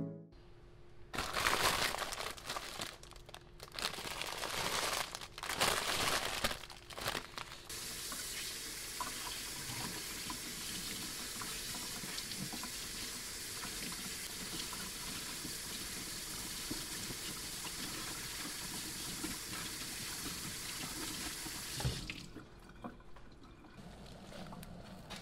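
Kitchen tap water running into a stainless steel sink over yu choy being rinsed. Several short bursts of splashing come first, then a steady stream from about eight seconds in, which cuts off about three seconds before the end.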